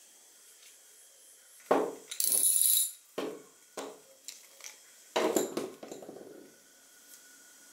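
Small metal parts of an old hand oiler clicking and knocking as they are handled and fitted together, with a short scrape about two seconds in and a metallic clink that rings briefly about five seconds in.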